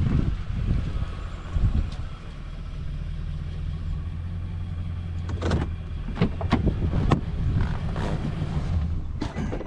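Heavy diesel engine of a Tigercat 234B log loader running steadily with a low hum, with several sharp knocks in the second half.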